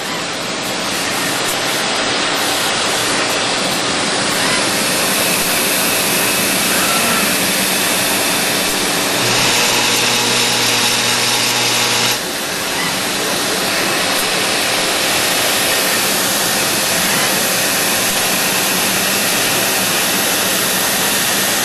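Steady machine noise from a running centerless grinding cell: an even, loud hiss with a faint low hum. About nine seconds in it grows brighter with a stronger hum, and it drops back abruptly about three seconds later.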